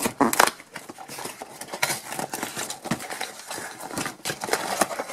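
Cardboard toy box being opened by hand: flaps pulled back and the box handled, giving a run of sharp clicks, scrapes and rustling.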